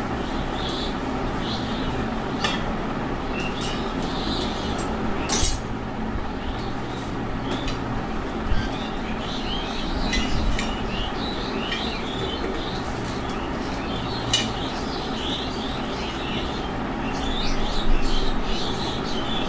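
Scattered metallic clinks and clicks of tools and metal fan parts being handled as a Farata fan is taken apart, a few sharp knocks standing out, over a steady background noise.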